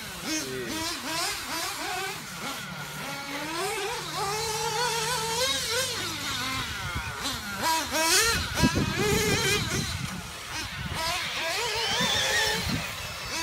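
Nitro RC buggy engines racing, their high pitch swooping up and down as they rev on the straights and back off for the turns, with a few knocks about eight seconds in.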